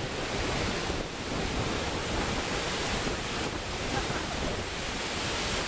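Ocean surf breaking and washing up onto a sandy beach: a steady, continuous rush of churning water.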